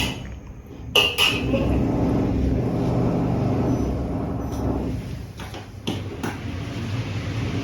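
Renovation noise through a wall: a sharp bang right at the start and another about a second in, then a steady low machine hum with a few lighter knocks near the end.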